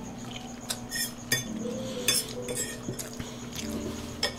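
Close-miked eating: chewing and biting into corn on the cob, with a few short sharp clicks scattered through.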